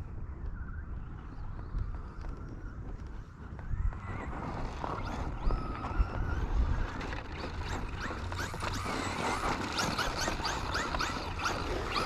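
Traxxas Slash RC truck's 3300 kV brushless motor whining up and down in pitch as the truck is driven over dirt and gravel, with many short ticks and crunches of stones. The whining and ticking get busier about four seconds in, over a steady low rumble.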